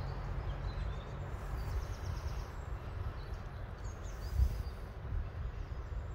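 Outdoor background noise: a steady low rumble with a few faint, high bird chirps, and one brief louder thump about four and a half seconds in.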